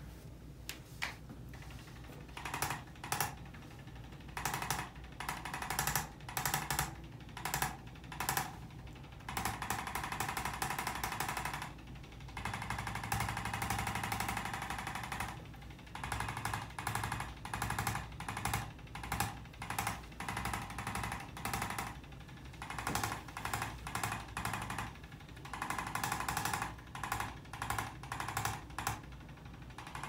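Corded electric chiropractic adjusting instrument firing rapid percussive thrusts into the lower back. It gives a fast rattling tap in short bursts that start and stop again and again, with a few longer runs lasting several seconds.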